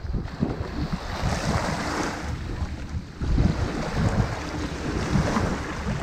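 Sea waves breaking and washing up a pebble beach, the surf hiss swelling about a second in and again around four to five seconds in. Wind buffets the microphone with a gusty low rumble.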